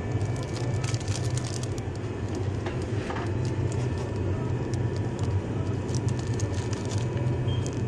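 Steady low hum of a convenience store's open refrigerated display case, with light crackling of a sandwich's plastic wrapper as it is taken off the shelf and handled.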